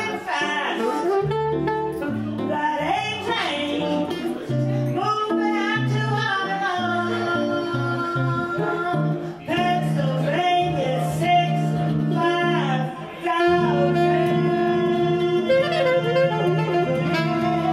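Live jazz from a small trio: a woman singing with alto saxophone and guitar accompaniment. About two-thirds of the way in they settle on one long held final note that lasts to the end.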